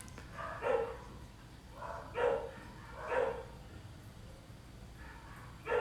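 A dog barking in the background, five short barks spaced irregularly across the few seconds.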